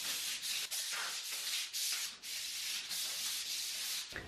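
Paper plates sliding under stockinged or bare feet across a hardwood floor, a rhythmic run of rubbing swishes, two or three a second, as the feet glide alternately in a skating motion.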